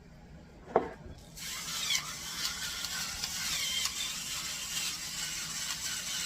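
A single click, then from about a second and a half in, salt and pepper grinders being twisted, with a steady ratcheting grind.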